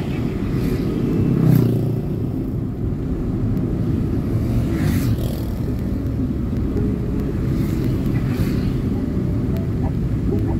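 Steady rumble of a moving road vehicle and road noise, with a few brief hissing swells about a second and a half, five and eight and a half seconds in.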